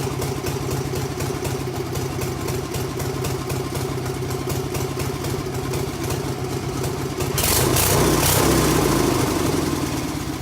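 Stump grinder's engine running steadily with an even pulse. About seven seconds in, a louder rushing surge rises and then eases off, and the sound drops away near the end.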